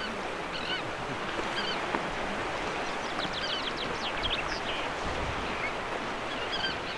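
Steady wash of sea waves and surf. Over it, Sandwich terns call in short bursts on and off, and a common chaffinch sings a quick trill of notes about three to four seconds in.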